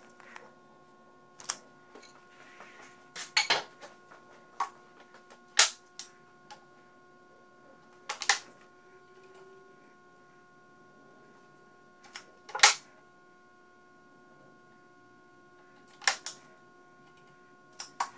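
Scattered sharp clicks and knocks from handling wood and tools at a table saw that is not running, about a dozen spread out, the loudest about a third of the way in and again about two-thirds in. A faint steady hum lies underneath.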